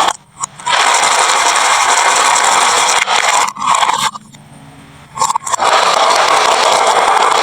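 Marbles rolling down a wooden marble-run track, a continuous rolling noise. The noise drops away for about a second a little past the middle, then resumes.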